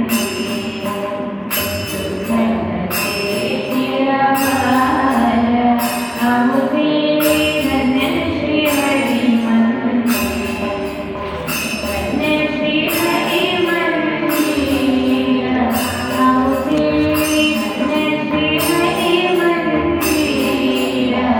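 Devotional Hindu bhajan: sung melody over a jingling metallic percussion beat struck about once a second.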